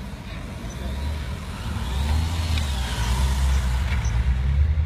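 Police motorcycles riding past at the head of a motorcade, with a faint whine that rises and falls in the middle, over a steady low rumble.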